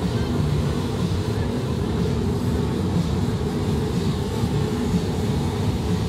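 Loud, steady low rumble of amplified harsh noise from a noise-music act through a club PA, with no beat or tune.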